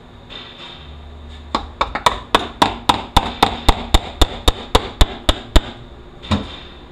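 Small red-handled hammer tapping on a 4F27E automatic transaxle during teardown: about sixteen sharp strikes in a steady rhythm of roughly four a second, then one lone knock near the end.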